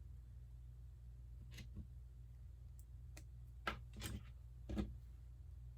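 Small plastic Lego pieces clicking and tapping as they are handled and fitted together: a few light clicks spread through, the louder ones in the second half, over a faint low hum.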